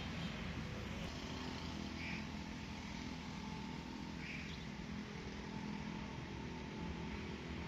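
Steady low mechanical hum with two short high chirps, about two seconds apart.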